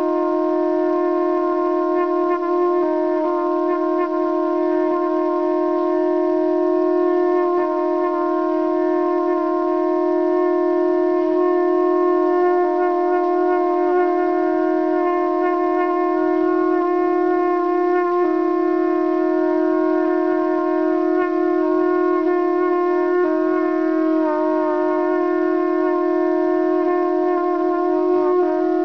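Two conch shells (shankha) blown together in one unbroken, steady note with many overtones, held for the whole stretch without a break for breath.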